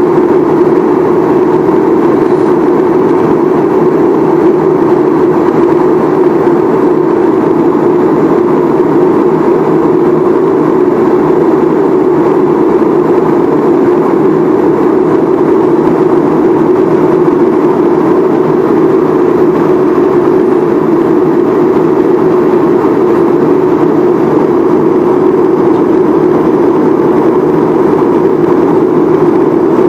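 Steady drone of an airliner cabin in cruise flight, the engine and airflow noise heard from a window seat. It holds an even, deep hum with no change.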